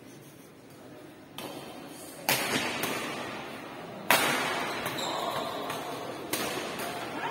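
Badminton rackets striking a shuttlecock in a doubles rally: about five sharp hits at uneven spacing, the loudest two about two and four seconds in, each echoing in a large hall.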